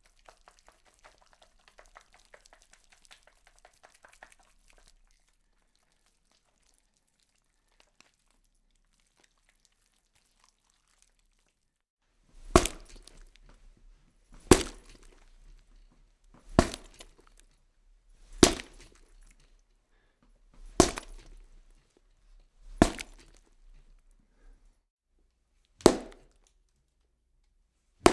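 Horror sound effect: faint crackling at the start, then, from about halfway through, a slow series of seven loud, sharp cracking impacts about two seconds apart, each with a short tail.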